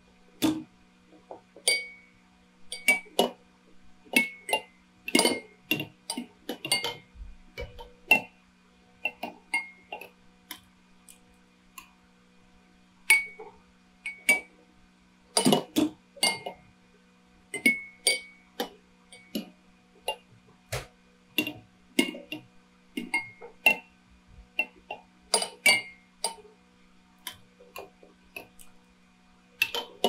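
Dozens of drinking bird toys tipping forward to dip into their water glasses, their heads clinking against the glasses in an irregular, overlapping patter of sharp clicks with a short glassy ring. A faint steady hum sits underneath.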